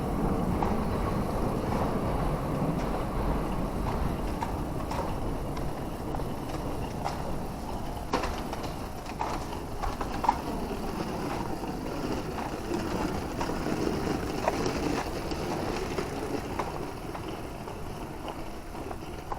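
Steady street and traffic noise with a low rumble, easing slightly toward the end, with scattered light clicks and one sharper click about halfway through.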